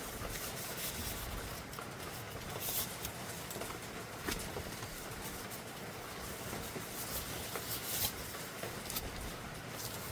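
A few light clicks and taps from handling the plastic printhead over a steady faint background hiss.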